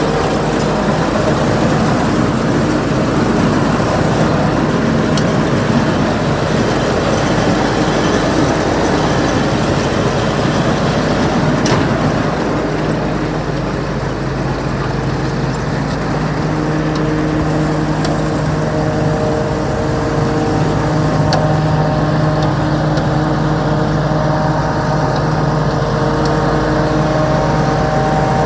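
Combine harvester's diesel engine running at a steady speed, a constant engine hum with a steady low tone that stands out more clearly from about halfway through.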